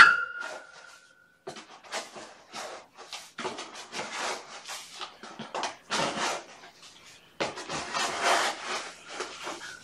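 An irregular run of short rasping scrapes, like scratching or scraping on a rough, fibrous surface. A sharp click with a brief ringing ping comes right at the start.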